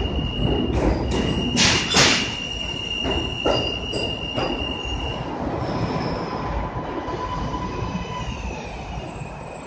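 New York City subway train running past along the platform. Its wheels knock over rail joints under a high, steady wheel squeal. The knocks thin out, the squeal stops about halfway through, and a rumble is left that slowly fades.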